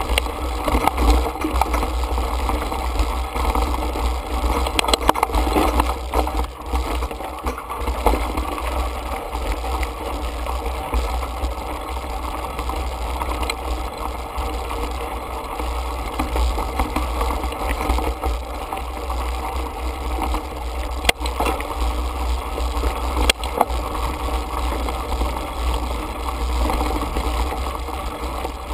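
Mountain bike rolling over a rocky dirt singletrack: tyres crunching on gravel and the bike rattling, under a steady low rumble, with a few sharp knocks as it hits rocks.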